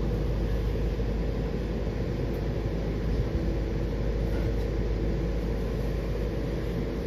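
Inside a Washington Metro Silver Line railcar: a steady low rumble with a faint even hum.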